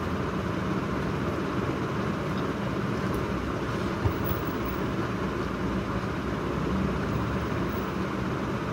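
Steady low background rumble with a faint hum, and a single soft click about four seconds in.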